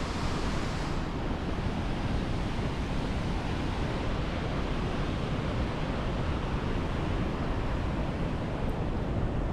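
Alexandra Falls, a waterfall on the Hay River, rushing with a steady even noise heard from the rock edge above the falls.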